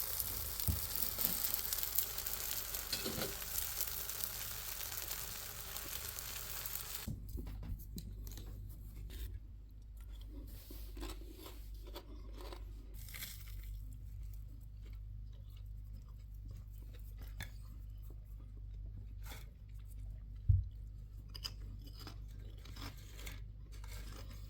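Food sizzling in a frying pan for several seconds, cutting off suddenly. Then quiet, scattered small crunches and clicks of eating.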